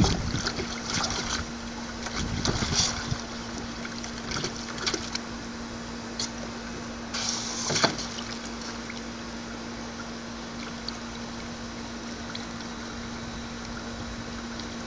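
Siberian Husky pawing at water in a plastic tub, splashing in several short bursts through the first eight seconds and more quietly after that, over a steady low hum.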